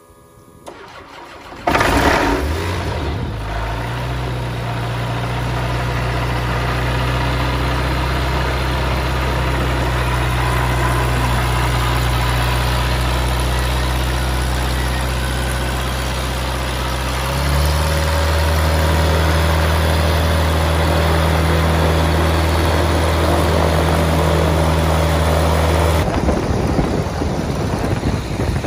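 Rotax 912iS fuel-injected flat-four aircraft engine with propeller, started for the first time: it catches about two seconds in and settles into a steady idle, then steps up to a slightly higher speed about 17 seconds in. Near the end the steady sound turns rougher and noisier.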